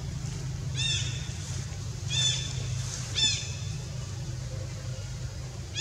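Three short, high-pitched animal calls, each rising then falling in pitch, about a second apart, over a steady low hum.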